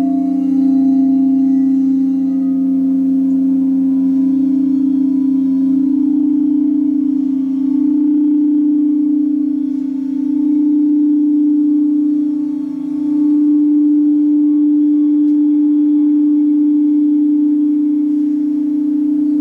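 Frosted quartz crystal singing bowls sung by circling a mallet around the rim. A steady, loud, low ringing hum of two close tones swells and eases a few times.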